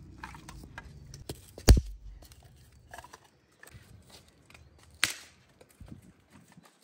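Two sharp knocks, one just under two seconds in and one about five seconds in, among quieter scattered clicks and shuffling.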